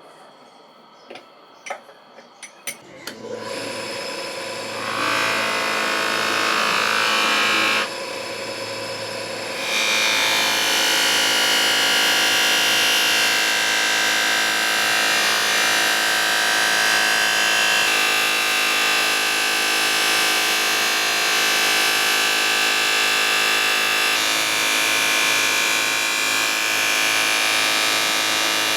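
A few clicks, then an electric power tool starts up about three seconds in and runs steadily, working metal, with a brief dip in level partway through.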